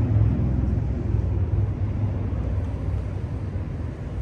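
Low, steady rumble of road traffic crossing the concrete bridge overhead, easing off near the end.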